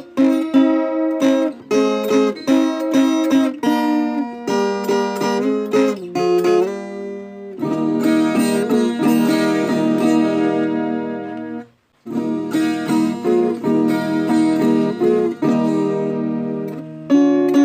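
Viola caipira, the Brazilian ten-string folk guitar, plucked in a rhythmic run of notes and chords. In the middle a chord rings out for a few seconds, then the music stops for a moment and picks up again.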